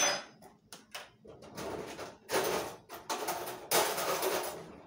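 Someone rummaging at a kitchen counter: a sharp clink at the start, then a run of rustling and scraping noises, the last and longest lasting about a second.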